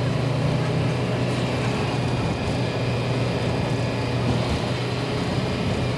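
Bus engine droning at a steady speed with road and tyre noise, heard inside the cabin while cruising; the engine hum holds one low pitch throughout.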